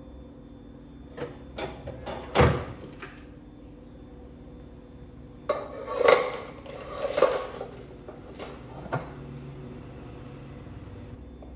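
Kitchenware knocking and clattering as a glass lid is handled and set on a stainless-steel pot. A few sharp knocks come first, the loudest about two and a half seconds in, then a run of clanks and scrapes from about five and a half to seven and a half seconds in, and two more knocks near nine seconds.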